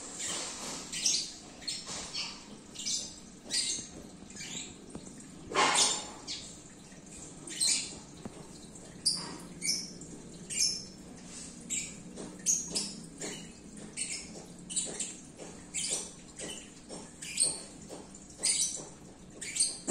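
Small birds chirping repeatedly in short, irregular high-pitched notes, with one louder, fuller call about six seconds in.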